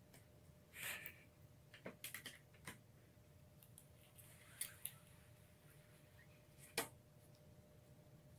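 Near silence: quiet shop room tone with a low steady hum, a soft rustle about a second in, and a handful of faint, scattered, short clicks.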